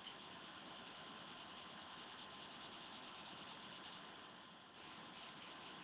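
Faint, fast scratching of a black felt-tip pen colouring in on paper in quick back-and-forth strokes, about ten strokes a second, pausing briefly about four seconds in before starting again. The pen is running dry.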